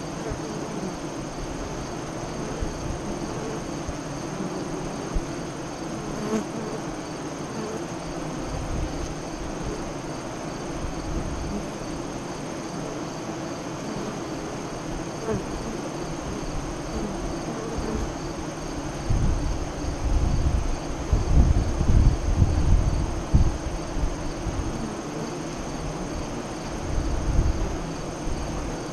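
Honey bees buzzing at a hive entrance: a steady, dense hum of many wings. About two-thirds of the way through, and again near the end, heavier low rumbling buffets come in under the hum.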